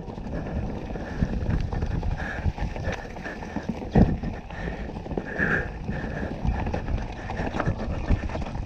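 Mountain bike riding fast over rough trail: tyres running over rocks and roots while the chain and frame rattle in a dense, irregular clatter, with one hard knock about four seconds in.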